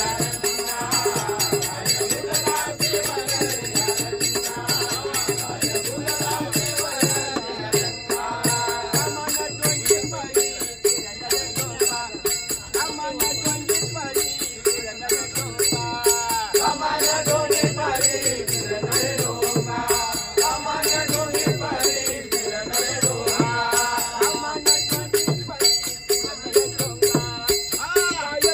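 A strong voice singing a Marathi abhang, a devotional song, accompanied by small hand cymbals (taal) clashing a steady beat and low rhythmic strokes.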